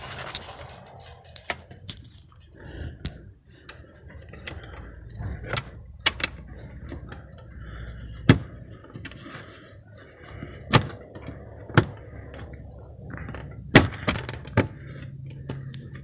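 Scattered sharp clicks and knocks of a car fog light assembly and its plastic bumper trim being handled and fitted back into place, with several louder knocks spread through.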